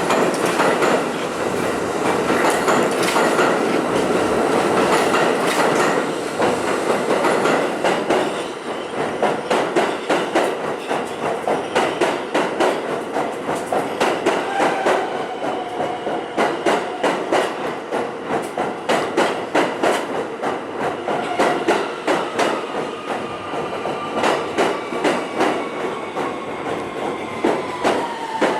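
New York City subway train wheels running over rail joints: a steady rush of wheel noise, then a regular clickety-clack of several clicks a second. A motor whine falls slowly in pitch through the second half as the train slows.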